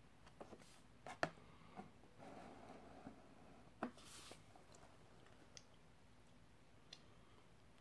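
A few light clicks and knocks of a metal spoon against a ready-meal tray, the loudest about a second in, with a couple of brief rustles between them; otherwise near silence.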